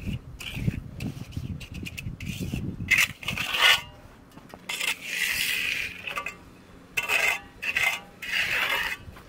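Steel hand trowel scraping over wet, freshly poured concrete as the slab is finished, in several separate sweeping strokes from about three seconds in.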